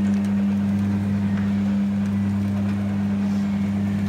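Coin-operated Spider-Man helicopter kiddy ride running, giving a steady low hum.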